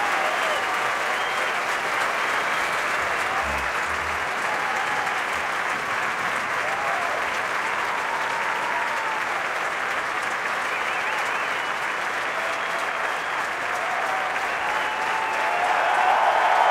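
Crowd applauding steadily, with a few voices shouting over the clapping; the applause swells near the end.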